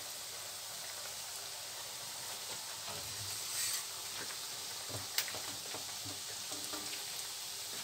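Yoyo dough rings deep-frying in a pan of hot oil, a steady sizzle with small crackles. A sharp click comes about five seconds in.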